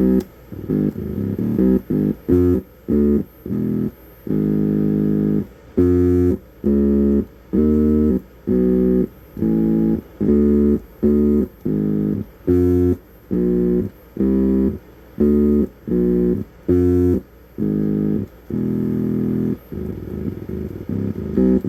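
Electronic tone generator played with buttons, sounding about twenty separate low notes in a row, mostly short with a few held longer. The notes are tuned to each other and sound melodic.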